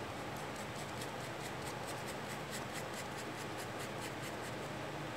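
Fountain pen nib scratching across watercolour paper in quick, repeated short hatching strokes, several a second.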